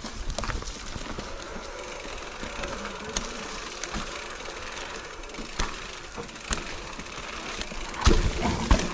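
Mountain bike descending a rough dirt trail: tyres rolling over loose dirt and roots with the bike rattling, and sharp knocks as it hits bumps, heaviest about eight seconds in.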